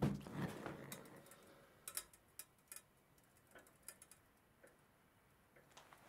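Gas burner of an antique French gas heater lighting with a sudden burst of flame that dies away over about a second, followed by scattered sharp ticks as the small flames settle on the burner.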